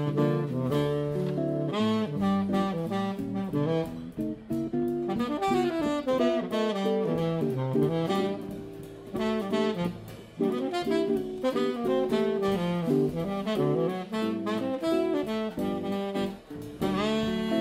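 Saxophone playing a jazz melody in quick runs of notes that rise and fall, backed by guitar and drums.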